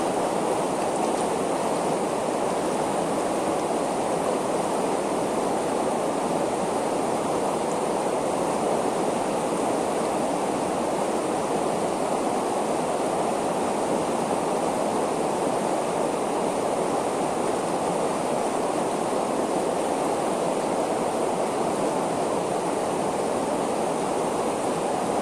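Rushing water of shallow river rapids running over rocks: a steady, unbroken rush.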